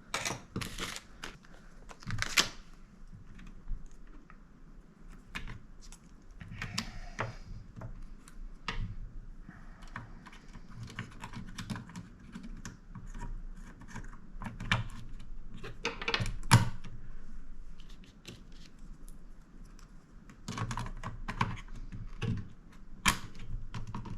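Irregular clicks and plastic taps of hands handling laptop-style SO-DIMM memory modules inside a mini desktop PC, as the modules are unclipped from and pressed into their slots, with a few sharper snaps among them.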